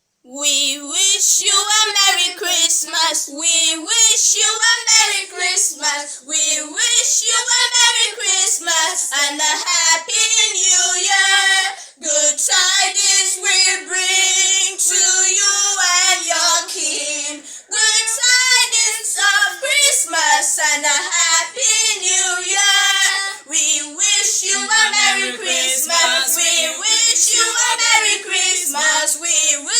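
A high voice singing a slow melody in long held notes with wavering pitch.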